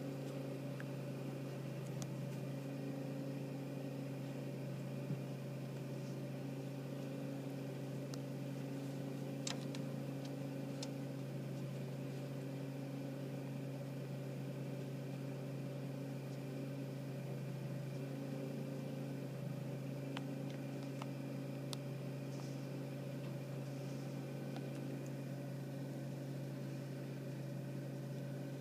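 John Deere X500 garden tractor's engine running steadily at a constant speed, with an even hum that never rises or falls.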